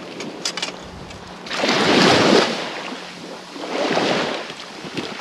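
Small waves washing up the beach, swelling and fading twice about two seconds apart. A few light clicks near the start come from the wooden push-net frame being handled.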